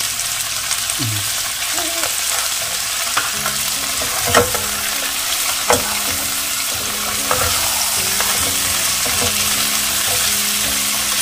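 Chopped onions, tomatoes and herbs sizzling in oil in a pan while a spatula stirs them, with a few sharp knocks of the spatula against the pan.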